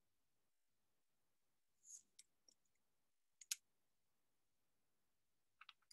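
Near silence broken by a few faint clicks, as of someone handling a computer at a desk: a soft rustle with a click about two seconds in, a sharp double click about a second and a half later, and a quick run of clicks near the end.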